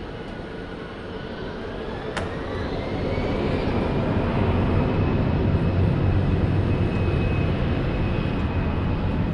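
Jet engines of an Air India Airbus A320 at takeoff thrust on the runway: a rumble that grows louder over the first few seconds and then holds steady, with a faint whine rising in pitch as it builds. A single sharp click about two seconds in.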